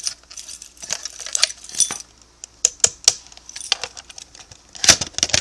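Plastic clicks and rattles from a SpectrAlert Classic horn strobe being handled as its slightly broken latch is worked, a string of sharp snaps with a louder cluster near the end.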